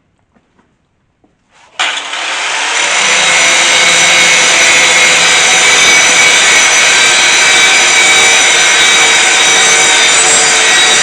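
Electric grinder grinding steel, starting about two seconds in, and running loud and steady with a high metallic whine.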